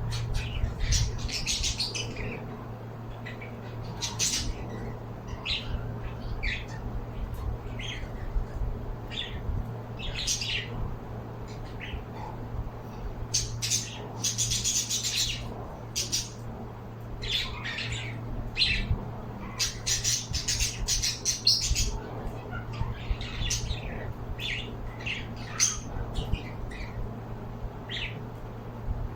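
Pet birds calling, with many short high-pitched calls that come in clusters, over a steady low hum.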